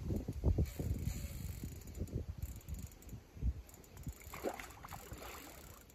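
Carp fishing reel being wound in while a hooked carp is played toward the bank, with mechanical clicking and irregular knocks of handling.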